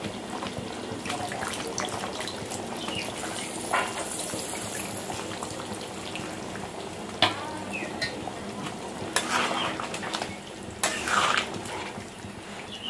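A flat metal spatula stirring a simmering, watery meat and potato curry in a metal kadai, with the gravy sizzling and bubbling steadily. The spatula scrapes and knocks against the pan a few times.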